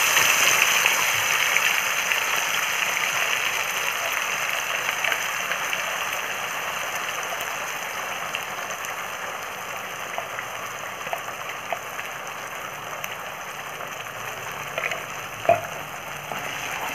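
Ground chili and shallot spice paste frying in hot oil in a wok: a steady sizzling hiss with scattered small pops and crackles, loudest just after the paste goes in and slowly dying down as it is sautéed until fragrant. One sharper click near the end.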